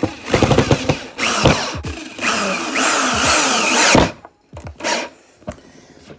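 Power drill running in two long bursts into a wooden desk top, driving in screws to fasten a fingerboard pole jam. It stops about four seconds in, followed by a few light clicks.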